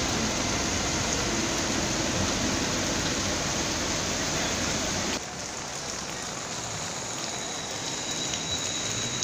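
Heavy rain falling in a steady hiss. About five seconds in it cuts abruptly to a quieter hiss of rain.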